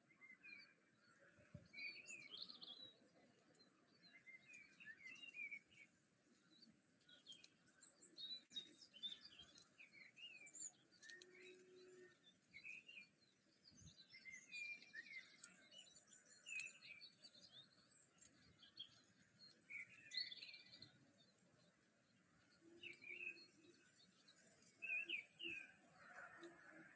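Small garden birds chirping: many short, separate chirps and twitters scattered throughout, with a faint steady high tone beneath.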